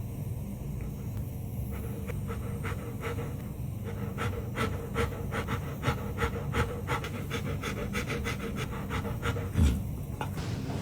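Dog gnawing a teeth-cleaning chew bone: teeth scraping and crunching in irregular sharp clicks, denser after the first couple of seconds, over the dog's heavy breathing. A low thump about nine and a half seconds in.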